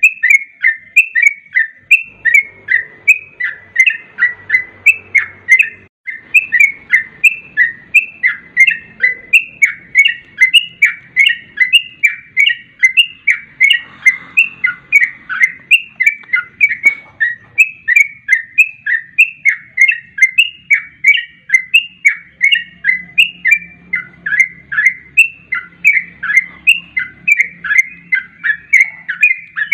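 Yellow-vented bulbul (cucak trucuk) song: short notes that slide down in pitch, repeated evenly at about two to three a second without a break.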